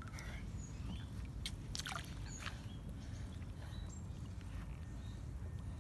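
Lake water sloshing and dripping as a large mirror carp is lowered back into the shallows by hand for release: a few short splashes and drips over a low steady rumble.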